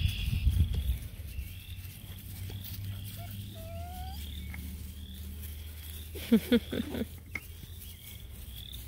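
Bluetick Coonhound puppies playing, one letting out a quick string of high, wavering yips and whines about six seconds in. Earlier there is a single short rising whine, and the first second carries a low rumble of wind or handling on the microphone.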